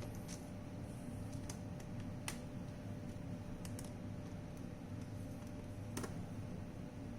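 Scattered light clicks and taps, about half a dozen, irregularly spaced, from small plastic parts being handled during a robot vacuum repair. Under them is a steady low room hum with a faint high tone.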